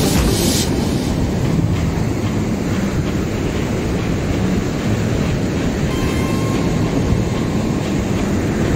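Wind buffeting the microphone over the rush of breaking surf, a steady rumbling noise.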